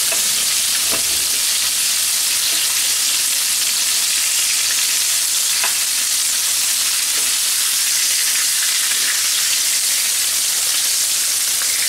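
Floured chicken pieces frying in hot oil in a pan, making a steady sizzle.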